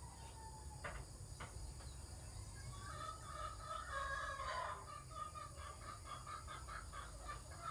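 Chickens calling in the background: a drawn-out crow around the middle, then a run of short clucks at about three a second, over a steady low hum.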